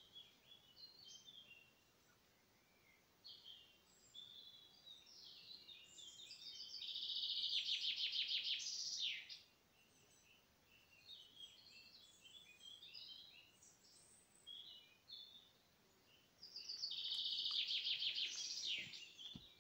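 Small songbirds singing: two loud rapid trilled songs of about two seconds each, one about a third of the way in and one near the end, each ending in a falling flourish, with scattered short high chirps and calls between them.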